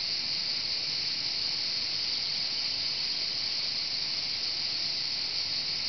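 Cicadas chorusing: a continuous, even, high-pitched buzz.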